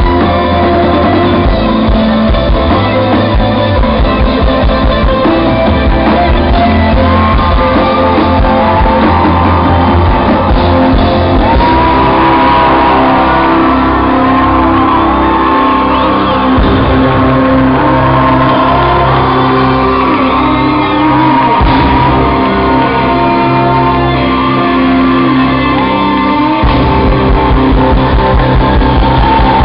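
Rock band playing loud, with drums, electric guitar, bass and a singer's voice carrying the melody.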